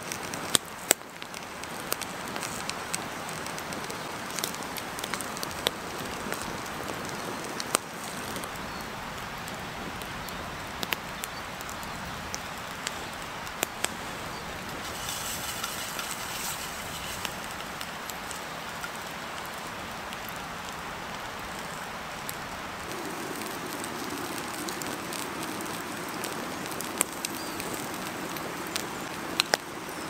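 Wood campfire crackling with scattered sharp pops over the steady hiss of turkey sausages sizzling in a frying pan.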